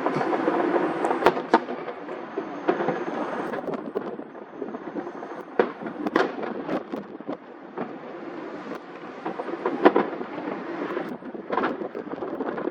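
Fireworks display going off: a string of sharp bangs and cracks at uneven intervals over a steady rumbling din, with the loudest bursts about six and ten seconds in.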